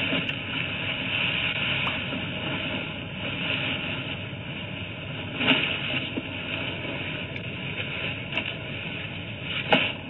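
Steady rushing outdoor background noise picked up through a doorbell camera's microphone, with two brief knocks, one about five and a half seconds in and a louder one near the end.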